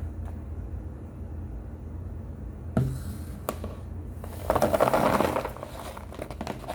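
A baked powder chunk crunching and crumbling for about a second, midway through, after a single sharp click.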